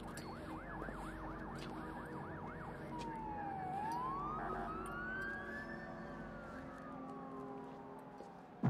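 Emergency vehicle siren: a fast yelp of rapid rising-and-falling sweeps, about four a second, for the first three seconds, then a slow wail that dips, climbs high and slowly falls away, over a low steady hum.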